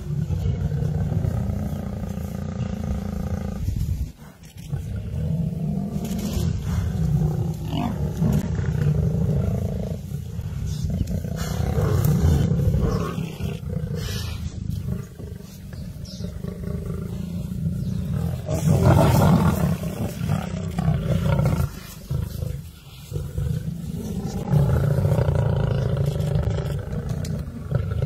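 Lions roaring, loud and almost without pause, dropping away briefly about four seconds in and again a little past twenty-two seconds.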